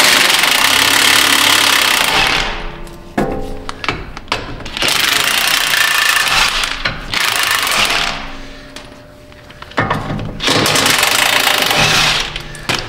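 DeWalt cordless impact wrench hammering bolts out of a mini excavator's underside cover, in three runs of about two seconds each.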